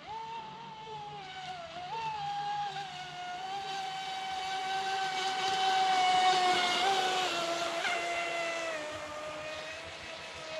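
Radio-controlled ProBoat Impulse 32 deep-vee boat running on the water, its brushless electric motor giving a steady whine whose pitch steps with the throttle. A hiss grows as the boat comes closest, about six seconds in, then fades as the pitch drops.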